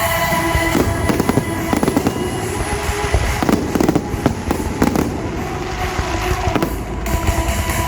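Aerial fireworks going off in quick succession, many bangs and crackles close together, with the show's music playing underneath.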